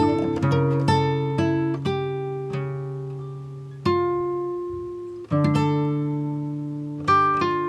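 Background music played on a plucked acoustic guitar: runs of picked notes, with two chords struck in the middle and left to ring out.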